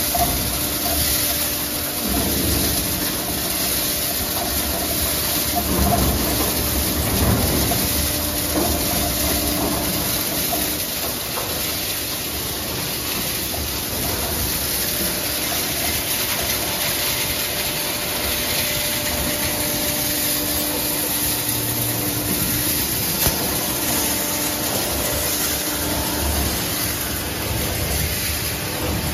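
Single-shaft shredder and crusher running under load, shredding pipes fed into its hopper: a steady machine hum with irregular, rougher crunching stretches as material is chewed up.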